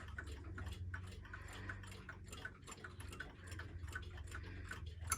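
Clocks ticking, several ticks a second at uneven spacing.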